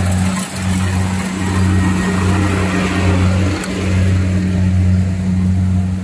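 Combine harvester's diesel engine running steadily under load as the Kubota DC-70 Plus cuts and threshes rice, a low, even drone.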